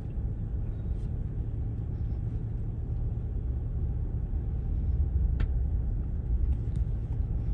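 Steady low rumble inside a Jeep driving slowly on packed beach sand: engine and tyre noise heard from the cabin. There is one faint click about five seconds in.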